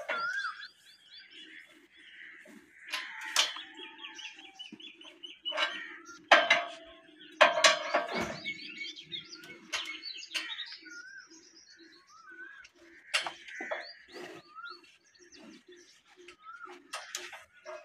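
Small birds chirping on and off, cut through by sharp metallic clanks and clinks from a steel chain-hoist lifting frame as its crank is worked.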